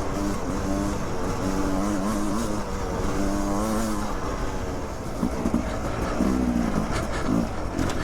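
Beta 300 two-stroke dirt bike engine running at a fairly steady pitch, then revving up and down repeatedly for the last few seconds as the throttle is worked.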